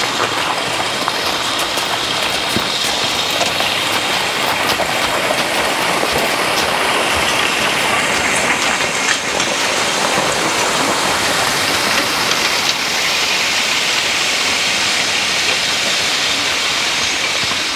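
Steel spring-tooth harrow and the forecart's steel wheels dragging over loose crusher-run gravel: a steady rattling crunch full of small clicks, smoothing the freshly spread stone.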